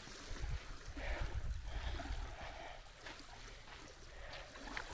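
Small waves of a calm sea lapping at a sandy, shell-strewn shore, with a low rumble that is strongest in the first two seconds.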